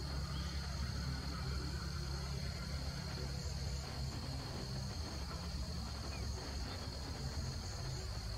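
Steady high-pitched drone of insects, unbroken, over a constant low rumble.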